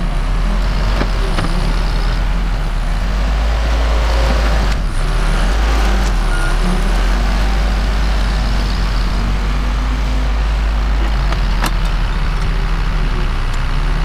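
Backhoe loader's diesel engine running steadily under load as it carries a tree stump in its front bucket, with one sharp knock about three-quarters of the way through.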